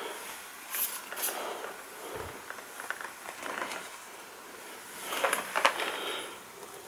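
Small cardboard e-liquid boxes being handled and set down on a wooden tabletop: scattered light taps and rustles, a soft knock about two seconds in, and a busier patch of rustling near the end.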